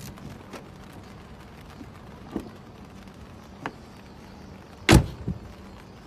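A freshly cut HU101 key working a car's door lock: a few faint clicks, then a loud clunk of the lock mechanism about five seconds in, with a smaller knock just after.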